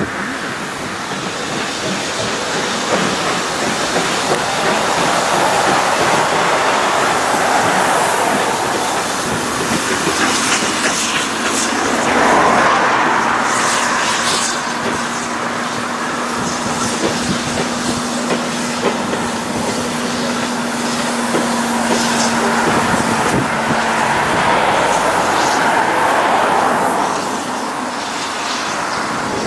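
Passenger coaches of a steam-hauled train rolling past, their wheels clattering over the rail joints, with a steady low tone held for about ten seconds in the middle of the pass.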